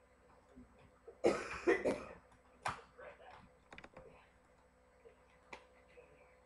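A person's voice in short, loud bursts about a second in and again near three seconds, followed by a few faint clicks.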